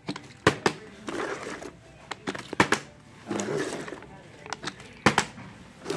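A plastic water bottle being flipped and landing on a hard floor: three sharp double knocks, roughly two and a half seconds apart, with scuffling handling noise in between.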